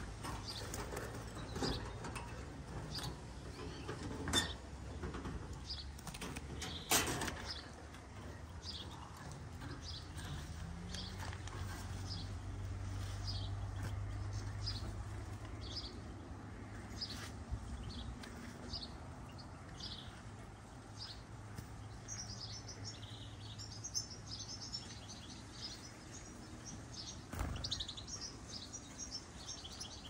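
Small songbird calls: a short, high chirp repeated steadily, then a stretch of fast, high twittering song over the last several seconds. A few sharp knocks from handling cut in, the loudest about seven seconds in.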